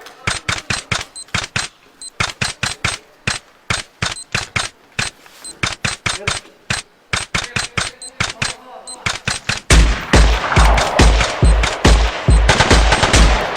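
A rapid, even run of sharp gunshot-like cracks, about five a second, typical of airsoft gunfire. About ten seconds in, a heavy booming bass beat joins it and the whole thing gets louder.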